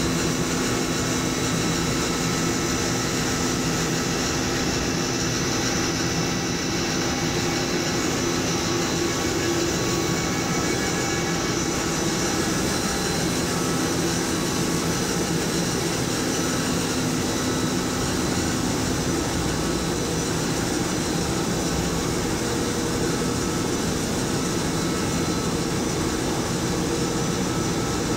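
Polypropylene staple fiber production line machinery running: a loud, steady machine drone with several constant tones over a broad rushing noise.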